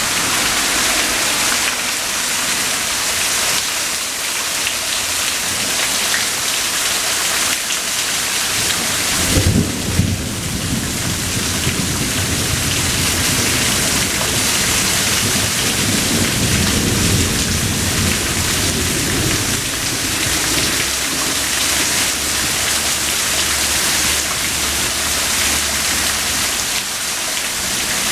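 Steady rain falling throughout. About a third of the way in comes a clap of thunder that rumbles on for about ten seconds before dying away.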